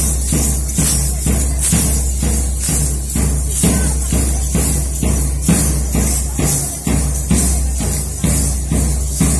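Lezim dance music: metal jingles of lezims clashing on each beat of a quick, steady rhythm, over loud music with a drumbeat and a steady low drone.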